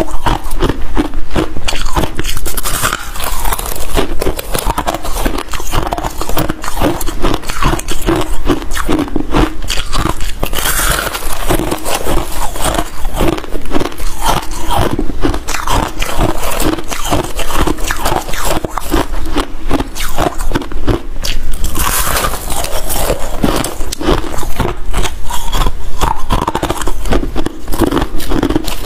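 Freezer frost being bitten and chewed close to a clip-on microphone: a constant run of loud, crunchy, crackling crunches.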